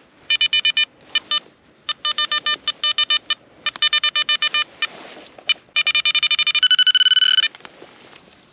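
Garrett Vortex VX9 metal detector giving target tones: bursts of rapid short beeps, about ten a second, then a longer held tone near the end. The tones signal a buried metal target.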